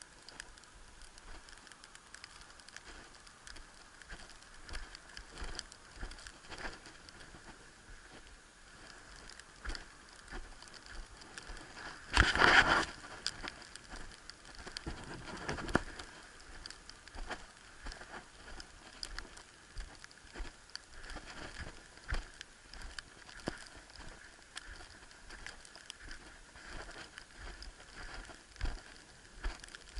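Footsteps crunching through snow, heard as irregular soft crunches and patter, close on a small action camera's microphone. A brief loud rush of noise comes about twelve seconds in.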